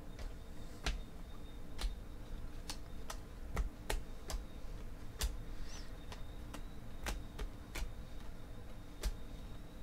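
Stiff, glossy Panini Prizm football trading cards being flicked through one by one in the hand, each card snapping off the stack with a sharp click, at an irregular pace of roughly one or two a second.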